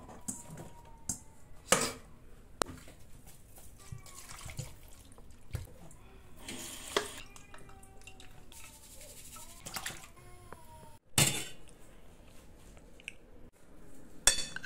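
Kitchen clatter: cut vegetables tipped from a metal colander into a steel cooking pot, with sharp metal-on-metal knocks and water trickling and dripping.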